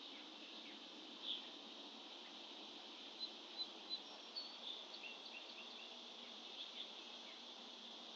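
Small songbirds giving short high chirps, three quick ones in a row about three seconds in and a few more scattered through, over a steady faint high hiss.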